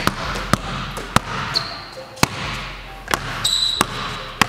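A basketball being dribbled on a hardwood gym floor: about seven sharp bounces, roughly every half second, in an uneven change-of-speed rhythm. Sneaker soles squeak on the hardwood twice, high-pitched, once a little past a second in and once about three and a half seconds in.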